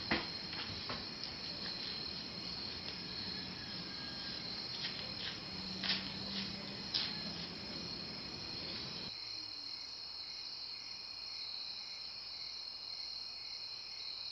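Steady, high-pitched chorus of crickets, with a few faint taps about six and seven seconds in. The low background hiss drops away about nine seconds in while the crickets go on.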